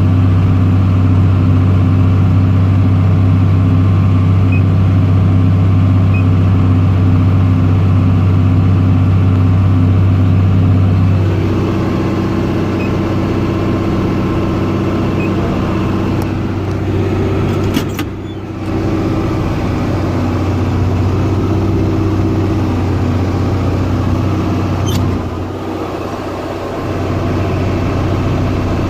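John Deere 4440 tractor's six-cylinder diesel running steadily while baling hay with a round baler. The engine note shifts and drops a little about a third of the way in, a sharp click comes just past the middle, and the level dips briefly near the end.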